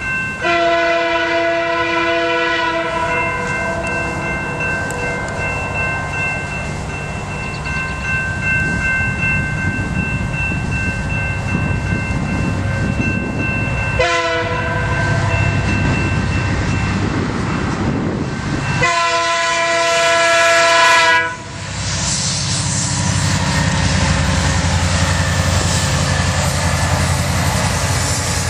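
A CN freight train's diesel locomotive horn sounds several times: a long blast at the start, a short one about halfway, and a long blast that swells and cuts off abruptly about three-quarters of the way through. After it, the SD75I and SD60 diesel locomotives rumble past close by, running with the train.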